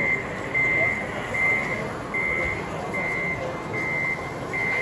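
Reversing alarm of a radio-controlled model truck, a single high beep repeating evenly about every 0.8 seconds, seven beeps in all.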